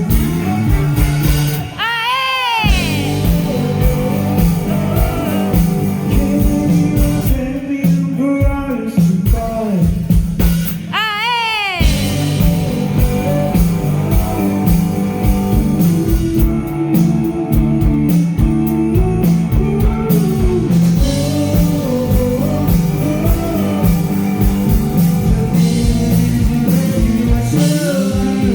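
Live rock band playing a song: electric guitar, drum kit and a sung vocal. Twice a note sweeps up in pitch and back down, about two seconds in and again about eleven seconds in.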